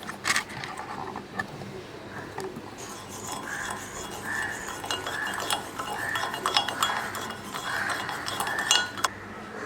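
Cutlery clinking and tapping against dishes: one sharp clink at the start, then a busy run of light taps and scrapes from about three seconds in until just before the end.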